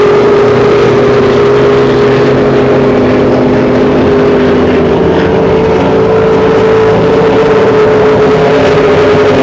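Racing speedboat engine running flat out as the boat passes at speed, holding a steady, high-pitched note.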